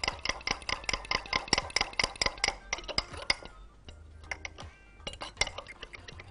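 A fork clinking rapidly against a small glass measuring cup while whisking egg yolk, milk and instant coffee into an egg wash: quick, even clicks, about five a second. The clicks stop for about a second and a half in the middle, then start again.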